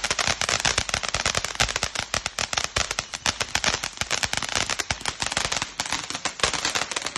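Consumer fireworks going off as a dense, rapid run of firecracker-like cracks and pops that stops suddenly right at the end.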